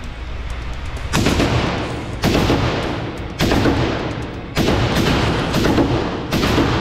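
AR-15-style rifle firing single shots, five in all, roughly one a second, each trailing off in a long echo off the indoor range's walls.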